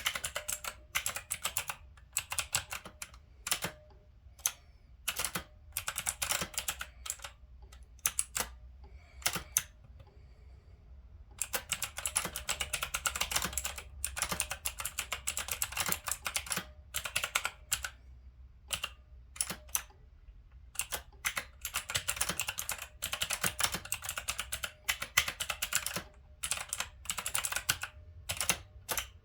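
Typing on an Onn mechanical keyboard: quick runs of clacking keystrokes, with a pause of about two seconds about a third of the way in.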